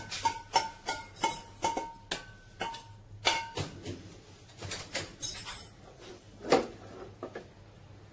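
A metal spoon knocking minced meat out of a stainless steel bowl, the bowl ringing at the same pitch with each knock. After about three and a half seconds the ringing stops, and the spoon clinks and scrapes against the frying pan as the meat is spread, with one loud knock near the end.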